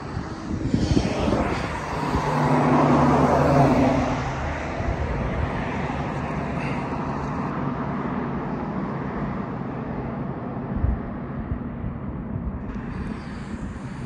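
Road traffic passing on a multi-lane street. A vehicle goes by close about two to four seconds in, its engine hum and tyre noise swelling and fading, then a steady wash of more distant traffic.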